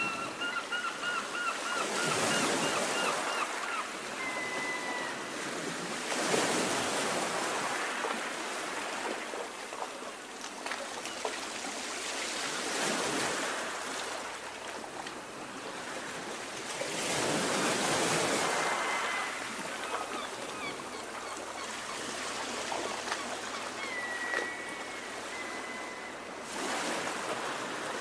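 Sea waves washing in at the shore, the water noise swelling and fading in surges every few seconds. Faint high calls sound over it: a quick string of short notes in the first few seconds and a few brief notes later.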